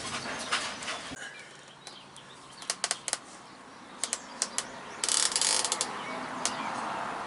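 Sharp metal clicks and clinks of hand tools and driveshaft parts being handled, with a short rattling burst about five seconds in.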